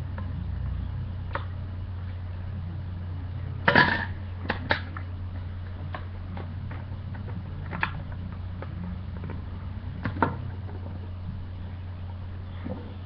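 Plastic parts of a toy security locker clicking and knocking as they are handled and fitted together by hand, with a quick cluster of sharper clicks about four seconds in and single knocks every few seconds after. A steady low hum runs underneath.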